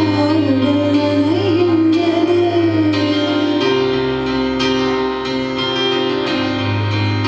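A woman sings a slow, wavering melody into a microphone over electronic keyboard accompaniment. Her voice ends about three seconds in, and the keyboard carries on alone with sustained chords.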